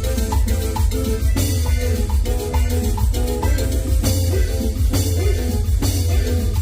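Latin dance music with a steady beat: drum kit and percussion over heavy bass.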